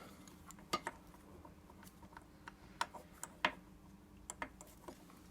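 About ten light, irregular clicks and taps of metal engine parts being handled, as a cylinder is worked up off its piston.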